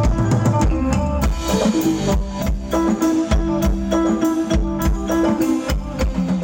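Band music with a drum kit, guitar and bass playing to a steady beat.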